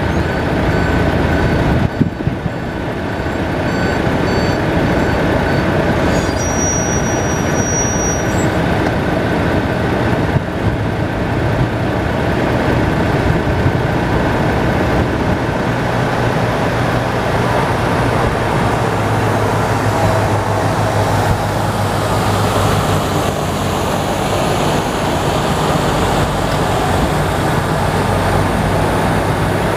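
Steady diesel engine and vehicle noise from trucks and a forklift working close by. A semi truck drives up and passes in the second half, where a low engine hum grows stronger, and a short run of high, evenly spaced beeps sounds during the first several seconds.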